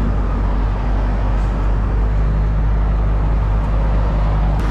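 Steady low rumble of an idling diesel semi-truck, with a single sharp click near the end.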